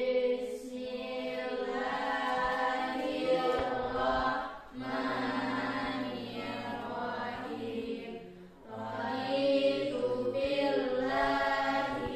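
Group of children reciting a prayer together in a sing-song chant, in long held phrases with short breaks about four and a half and eight and a half seconds in.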